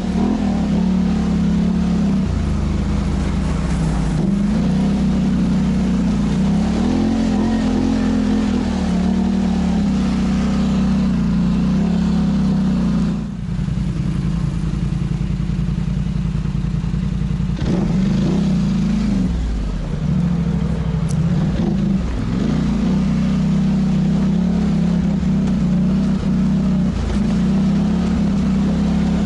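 Polaris Sportsman ATV's parallel-twin engine running under way, its pitch rising and falling with the throttle, with a brief let-off a little before the middle.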